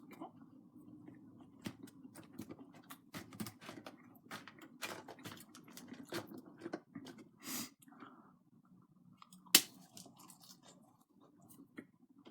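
A person chewing food, with crunching and many small irregular mouth clicks, and one sharper, louder click about nine and a half seconds in.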